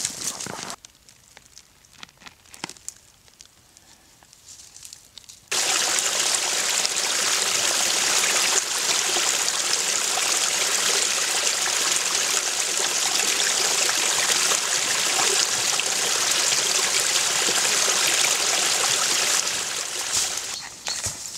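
Small woodland stream trickling over stones, a steady watery rush that cuts in suddenly about five seconds in and fades away near the end. Before it come a few footsteps in dry leaves and then a quiet stretch with only faint rustles.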